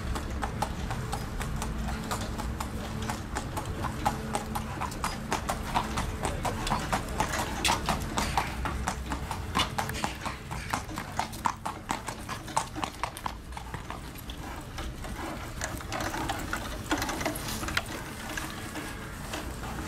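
Shod hooves of a harness-racing trotter clip-clopping at a walk on a paved path, in a steady run of sharp hoofbeats. The hoofbeats thin out over the last few seconds.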